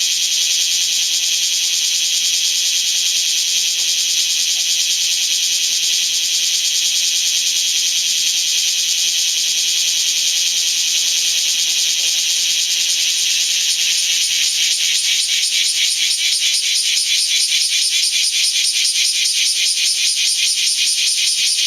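Several bear cicadas (kumazemi, Cryptotympana facialis) singing together in a dense, high buzzing chorus. About two-thirds of the way through, a fast pulsing rhythm builds up over the steady buzz.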